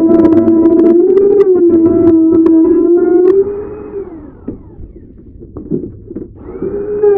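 Electric wood router cutting line grooves into a door panel, running at a steady high pitch with sharp ticks from the cut. About three seconds in it is switched off and winds down to a stop, then near the end it is started again, its pitch rising as it spins back up.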